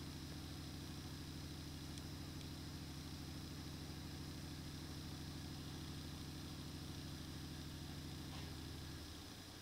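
A steady low mechanical hum of a running motor or engine, which drops away near the end.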